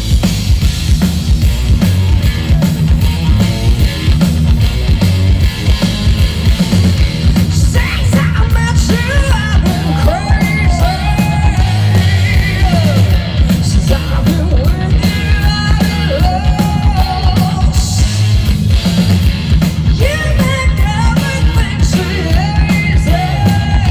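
Live hard rock band playing loud through a festival sound system, with heavy bass guitar and drums. A woman's lead vocal comes in about eight seconds in and carries on over the band.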